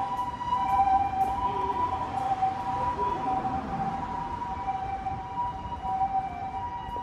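Two-tone electronic siren alternating between two pitches, at an even level throughout.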